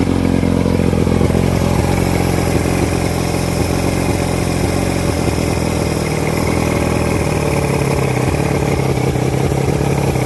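A Johnson 115 V4 two-stroke outboard running with its cowling off, at a steady idle; its note shifts slightly about halfway through.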